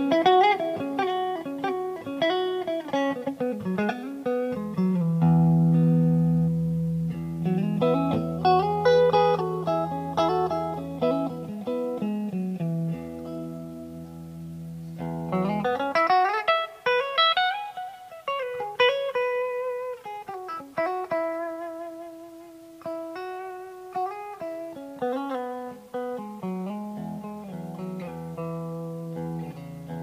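1982 Made-in-Japan Tokai Silver Star electric guitar, played amplified: melodic single-note lines with string bends and wide vibrato over held low notes that ring on.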